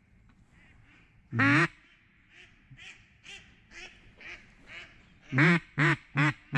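Loud mallard-style quacking: one loud quack about a second and a half in, a run of fainter evenly spaced quacks, then four loud quick quacks near the end.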